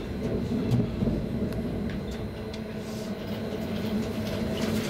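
Running noise of a Sm5 (Stadler FLIRT) electric commuter train heard from inside the carriage: a steady low rumble of wheels on track with a hum, and a few light clicks.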